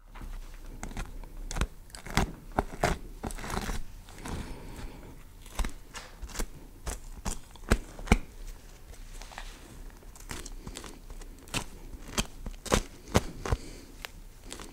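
Kitchen knife chopping vegetables on a plastic cutting board: sharp, irregularly spaced strikes with crinkling and rustling between them.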